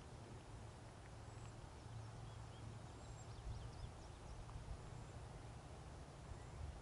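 Faint outdoor ambience: distant small birds chirping in short calls, mostly in the middle of the stretch, over a steady low rumble.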